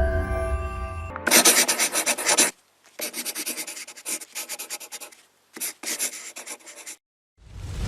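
Music fading out, then rapid rough scratching or rubbing strokes in several bursts broken by sudden silences, with a rising swell of noise near the end.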